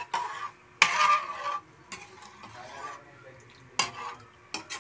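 Stirring in a cooking pot of simmering sauce with a utensil, with scraping and a few sharp clinks against the pot.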